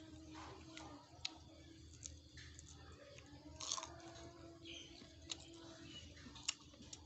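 A man quietly biting and chewing cooked caterpillar pupae pulled off a bamboo skewer, with a few sharp clicks or crunches scattered through it.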